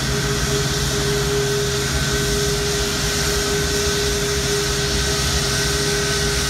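Etihad Airbus A340-500's four Rolls-Royce Trent 500 jet engines running at taxi idle as the airliner rolls past: a steady jet rush and whine with a few held tones.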